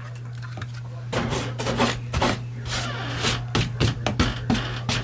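Rubbing, scraping and light knocking on a wooden door around a freshly bored lock hole, many short strokes in a row, over a steady low hum.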